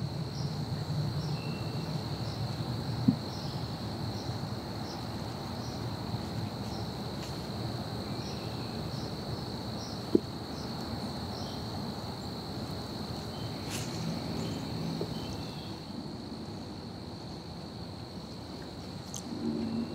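Forest ambience: insects keep up a steady high-pitched drone, with small repeated chirps above it and a faint low rumble underneath. Two brief sharp clicks stand out, one about three seconds in and one about ten seconds in.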